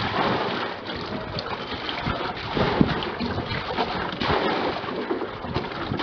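Water sloshing and splashing as it is scooped out of a fridge-box fish tank with a plastic jug and bucket and poured out, with a few short knocks of the containers.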